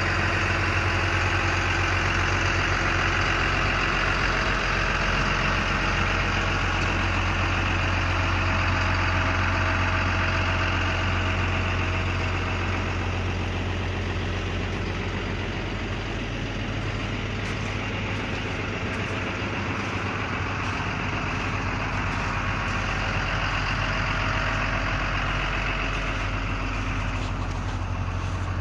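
Case CX210 excavator's six-cylinder diesel engine running steadily at idle, a little quieter past the middle.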